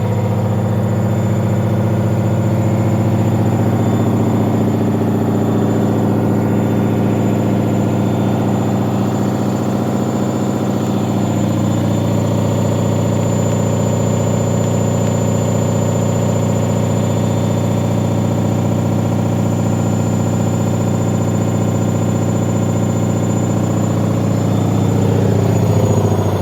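Leran washing machine spinning its drum at high speed on the spin cycle, a steady loud mechanical hum with a thin high whine; near the end the pitch starts to drop as the spin slows.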